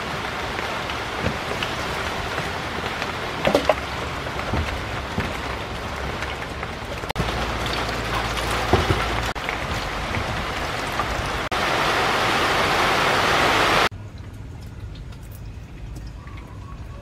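Steady rain hissing, with a few light knocks. Its level jumps several times, and it cuts out abruptly about fourteen seconds in, leaving only faint quieter sounds.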